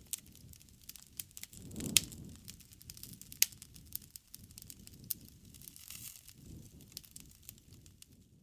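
Wood fire crackling, with irregular sharp pops over a low rush of flames; the loudest pops come about two seconds in and again about three and a half seconds in.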